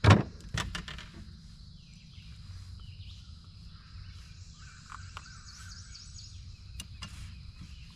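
Birds chirping and calling faintly over a steady low outdoor rumble, with a sharp knock and a few lighter clicks right at the start.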